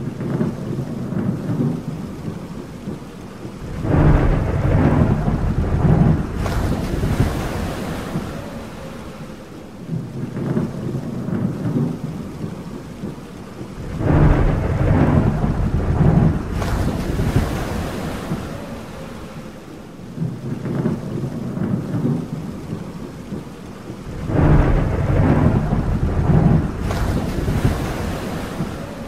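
Thunderstorm: three long rolls of thunder about ten seconds apart, each breaking into a brighter crackle a couple of seconds in, over steady rain.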